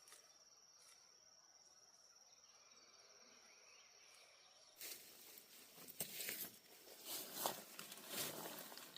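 An insect trills steadily on one high note. About five seconds in, the sound cuts abruptly to loud rustling and crackling with several sharp snaps.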